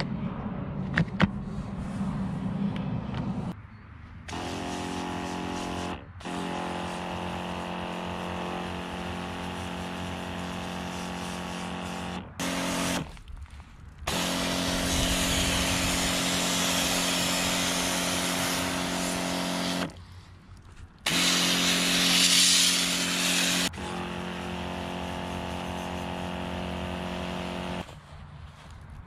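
Kärcher OC 3 portable low-pressure washer's pump humming steadily with the hiss of its water jet spraying a muddy bike. It stops and restarts several times, and the spray is loudest in the middle stretches. Before the pump first starts there are a few sharp handling clicks.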